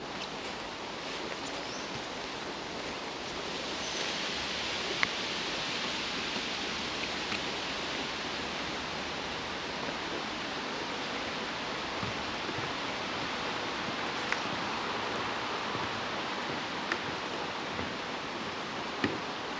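Steady outdoor rushing noise that grows louder about four seconds in, with a few scattered sharp clicks.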